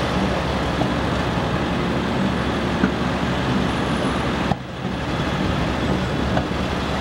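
Engine of an old International Harvester flatbed truck running steadily as it drives along a road, a low drone with road noise. The sound dips briefly about four and a half seconds in.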